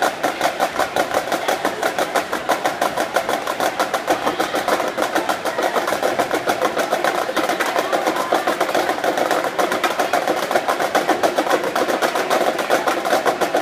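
Marching snare drums playing a fast, unbroken stream of stick strokes, many a second, at an even loudness.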